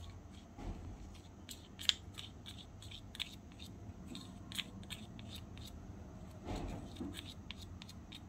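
Small metal spoon scraping brown powder out of a thin plastic cup into a tiny metal bowl: a run of light scrapes and ticks, the sharpest about two seconds in.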